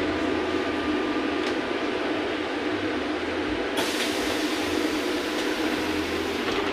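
Inside a VMZ-5298.20 trolleybus on the move: a steady rumble and hum of the running gear and road. A brighter hiss joins about four seconds in.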